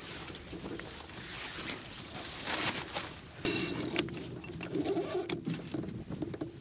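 Wind and sea noise aboard a sailboat tacking, with a creaking, squealing sound from about three and a half to five seconds in as the sheet is hauled around the cockpit winch.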